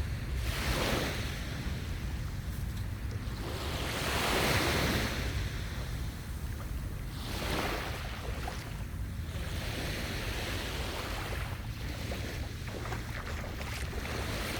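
Mediterranean sea waves washing onto the beach, swelling three times, the loudest about four seconds in, with wind rumbling on the microphone throughout.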